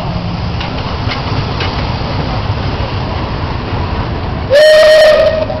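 Steam locomotive PM36-2 rolling into the station with a steady rumble and a few rail clicks about a second in, then one short, loud whistle blast that swoops up to a steady tone about four and a half seconds in.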